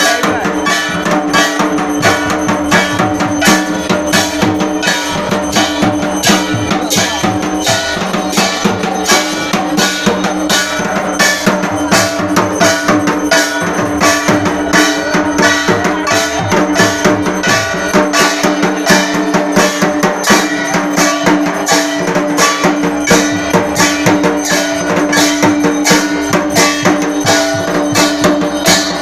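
Durga Puja arati drumming: a large barrel drum and a shoulder-slung dhol beaten in a fast, steady rhythm, with struck metal percussion clanging and ringing on the beats.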